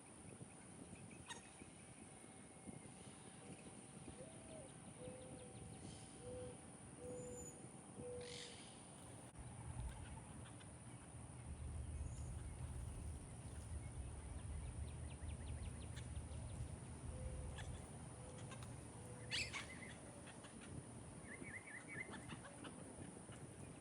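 A dove cooing twice: a run of soft, low coos, the first note higher and the following four lower, then a shorter run later, with a few faint higher chirps from other birds near the end. A low rumble underlies the middle.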